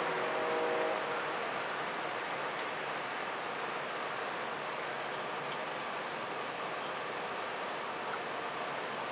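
Steady chorus of evening insects, an unbroken high-pitched trill, over a broad hum of city noise. A low hum with several pitches fades out about a second in.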